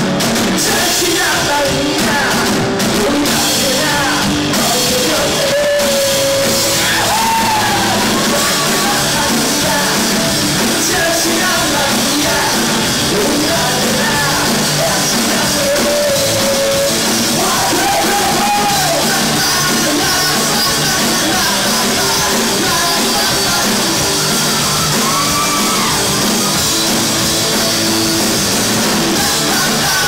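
Live rock band playing loud and without a break: electric guitar, bass and drum kit, with male lead vocals sung into the microphone.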